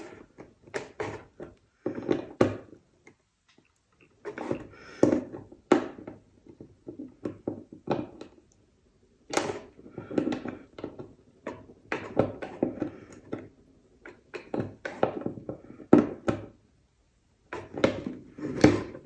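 Irregular clicks, knocks and handling noise from a small tool and the detector's plastic control housing while the 7mm nuts holding the control knobs are being undone.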